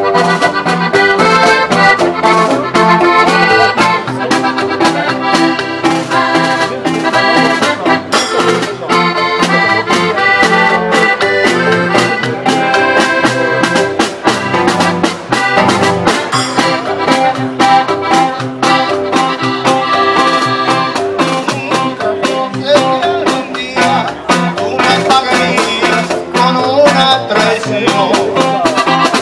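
Live norteño band playing an accordion-led tune: accordion carrying the melody over upright bass, strummed acoustic guitar and a steady snare-drum beat, amplified through PA speakers.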